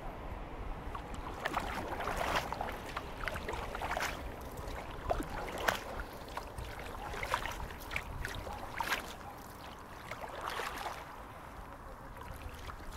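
Kayak paddle strokes splashing in the water, a splash about every second at an uneven pace, over a low steady rumble.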